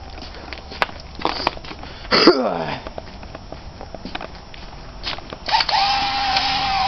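Footsteps crunching on packed snow, with a loud brief sound falling in pitch about two seconds in. Near the end a cordless drill spins up and runs with a steady whine.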